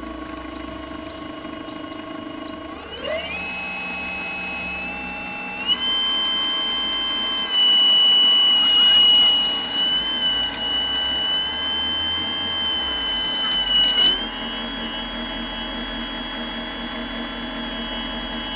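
Electric drive motors of a radio-controlled Hitachi 870 model excavator whining steadily as its tracks and boom move. The pitch steps up a few times, and the whine is loudest for a couple of seconds in the middle.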